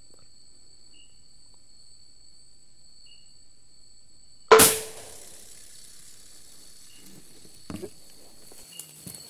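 A single air rifle shot about four and a half seconds in, a sharp crack that dies away within half a second. Under it, crickets trill in two steady high tones, a faint chirp repeats about once a second, and there is brief rustling near the end.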